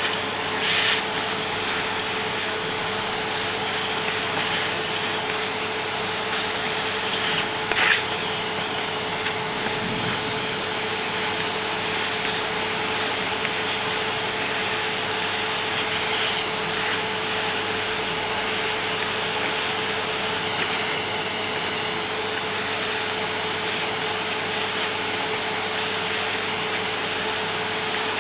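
Ariete Handy Force vacuum cleaner running steadily, its motor giving a constant whine, with rubbing as the nozzle moves and a few brief clicks.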